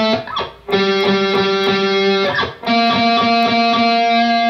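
Heavily distorted electric guitar playing a single-note riff with one finger, picking fast repeated notes on one fret and shifting to another fret, in an odd, uneven rhythm. It drops out briefly twice where the hand slides between positions.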